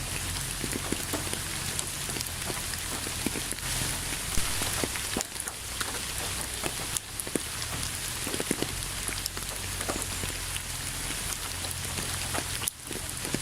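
Steady rain falling, with many separate drop hits heard through the even hiss; the sound drops out briefly near the end.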